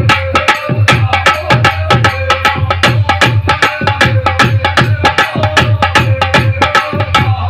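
Instrumental interlude of Indian folk music over a sound system: a fast, steady hand-drum rhythm with held melody notes over it.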